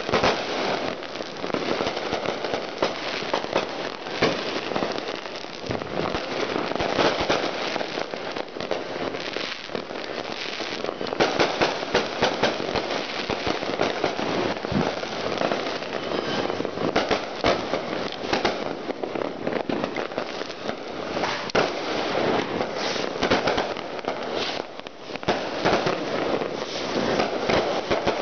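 Dense, continuous crackle of many firecrackers and fireworks going off together, with frequent sharper bangs standing out from the mass.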